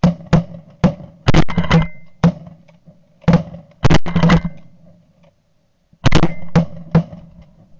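A volley of shotgun blasts from several guns, about a dozen sharp reports in three quick clusters with a pause of about a second and a half before the last cluster.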